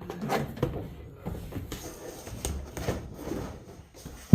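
Vinyl floor covering being pulled up and peeled back off a vehicle floor: irregular rustling, crinkling and scraping with small knocks, and a sharp knock right at the end.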